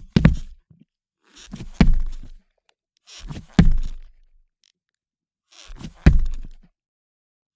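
Boots walking slowly on a parquet wooden floor: four heavy footsteps about two seconds apart. Each step is a softer sound leading into a sharp strike, with silence between steps.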